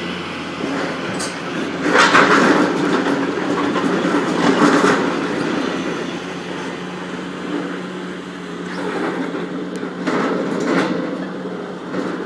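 Heavy construction machinery running steadily with a constant hum, swelling louder with clanking and rattling about two seconds in, again near five seconds and around ten to eleven seconds.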